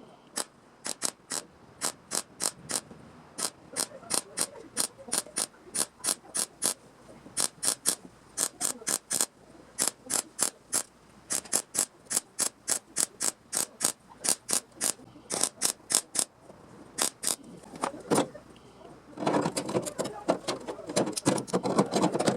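A hand tool clicking sharply over and over as it works sheet steel, about two to three clicks a second, turning into a denser run of rapid clicks and scraping near the end.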